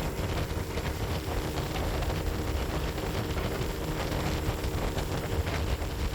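Boat engine running steadily under way, with wind rushing over the microphone.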